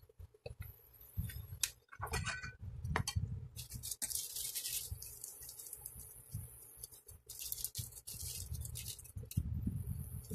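Kitchen handling sounds at a cooking pot: light clinks and knocks of a spatula and pot, low handling thumps, and two stretches of high hissing rustle, about three and a half seconds in and again near the eight-second mark.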